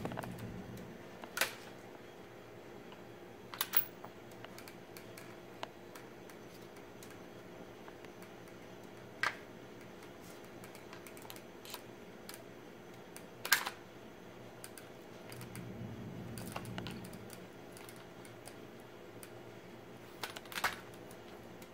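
Sharp metallic clicks and clacks, about half a dozen at irregular intervals, from a Tikka T3x bolt-action rifle being handled. Near the end comes a quick double click as the custom-extended bolt is worked. A faint steady hum runs underneath.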